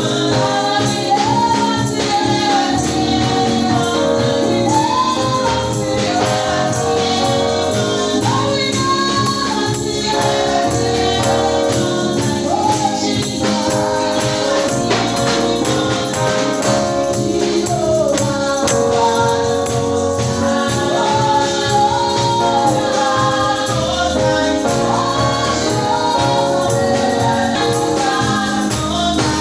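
Choir singing a gospel song, accompanied by a steadily shaken and struck tambourine and instrumental backing.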